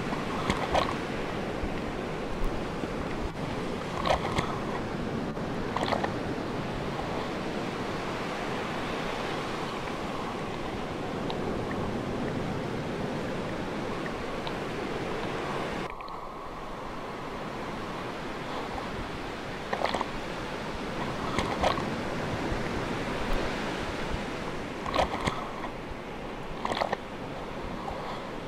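Sea waves washing steadily, with scattered short sharp clicks now and then. About halfway through, the sound abruptly drops a little and turns duller.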